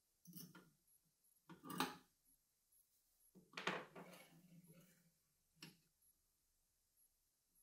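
Glass chimney and brass burner of an oil lantern being handled and set in place: a few light clinks and knocks of glass on metal, the loudest about two seconds in, then a longer clatter and one last tap.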